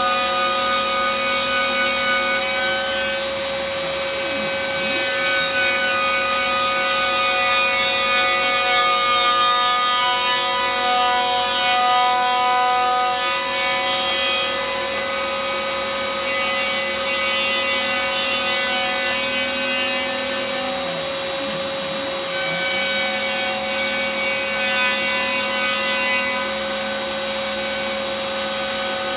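CNC router spindle and dust-collection vacuum running steadily, the vacuum the louder of the two, while the cutter faces the top of a redwood board. The steady whine dips and shifts pitch briefly twice, about four seconds in and about twenty-one seconds in.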